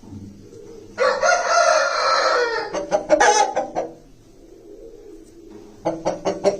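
Aseel rooster crowing once: a long crow of about three seconds, starting about a second in and breaking up at its end. Near the end, an even, rapid pulsing starts, about four beats a second.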